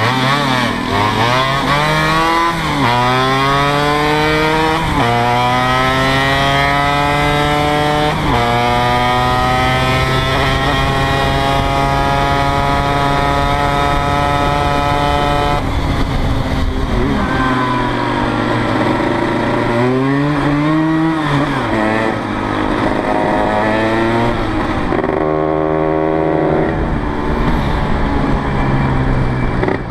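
Tuned two-stroke Vespa V50R engine (Quattrini M1L 133 cc on a Falk Ares race exhaust) accelerating hard, the note climbing with a sharp drop at each of three gear changes, then holding high revs. About halfway it breaks off and the revs rise and fall several times, ending with the red GS/3's tuned two-stroke (Quattrini M1X, 182 cc, Falk Elron exhaust) running on the road.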